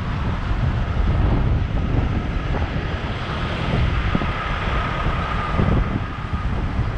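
Wind buffeting the microphone of a camera riding along a city bike lane, over a steady low road rumble. A faint thin whine comes in about three and a half seconds in and fades out near the end.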